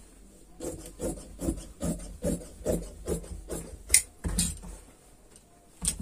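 Large tailor's scissors cutting through folded cloth: a quick, regular run of snips, about two and a half a second, with a sharper click near the end of the run. Another click comes just before the end.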